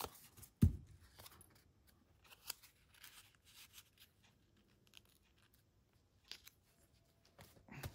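Paper ephemera being handled on a craft table: one thump under a second in, then scattered faint clicks and rustles of paper.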